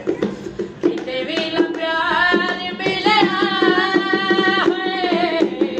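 A boy singing a slow, ornamented melody with long held notes, starting about a second in, accompanied by steady hand-drumming on a round orange improvised drum held in the player's lap.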